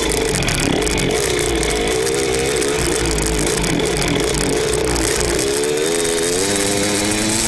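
Two-stroke Yamaha YZ motocross bike engine running while being ridden, its pitch wavering with the throttle and then rising steadily over the last two seconds as it accelerates. Wind rushes across the bike-mounted microphone.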